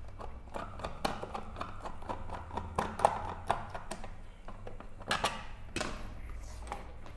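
Small sharp clicks and taps of white plastic modular switch-board parts being handled and screws on the board plate being undone, with a few louder knocks about 1, 3 and 5 seconds in. A low steady hum runs underneath.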